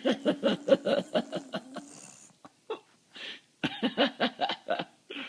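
A young child making pooting noises with the mouth: rapid, laugh-like pitched bursts, about seven a second, in a two-second run and then a shorter second run about four seconds in.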